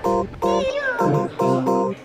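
Background music: short plucked guitar chords in a steady rhythm, about two a second, with a sliding, wavering lead melody above them.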